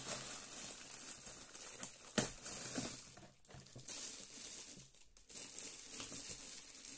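Thin plastic packaging bag crinkling and rustling as a wrapped item is handled and lifted out of a cardboard box, with one sharp, loud crackle about two seconds in.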